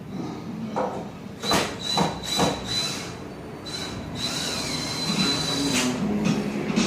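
A few sharp knocks of wood and hardware, then a power drill-driver whining steadily for several seconds with short breaks, as the loft platform's fixings are backed out. Music plays faintly underneath.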